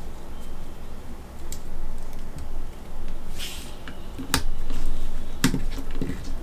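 Plastic and metal parts of a mecha action figure clicking as they are handled and fitted together: a few sharp clicks, the loudest about four and five and a half seconds in, with a brief rustle of handling around three and a half seconds.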